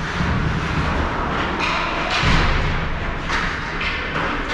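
Ice hockey play echoing in an indoor rink: skates scraping the ice and sticks and puck knocking, several sharp strokes with one heavier thud about two seconds in.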